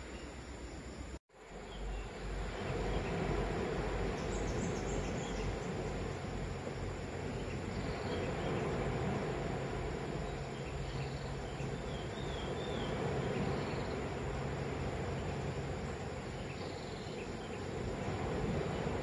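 Outdoor morning ambience: a steady wash of noise with faint, short, high chirps scattered through it. There is a brief dropout about a second in.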